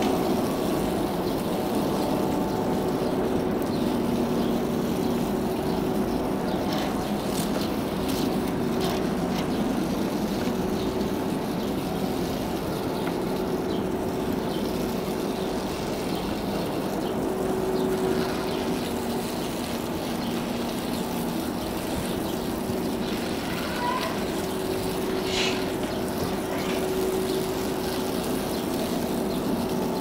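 Garden hose spraying a jet of water onto the condenser coil and mesh grille of a switched-off window air conditioner, a steady hiss and splatter of water on metal, washing out the dust that clogs the coil. A faint steady hum runs underneath.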